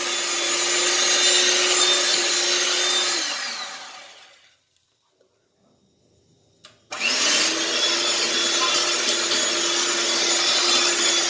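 Electric hand mixer beating butter and sugar: it runs steadily, is switched off and spins down with a falling whine about three seconds in, stays silent for a couple of seconds, then a click and it spins back up and runs steadily again.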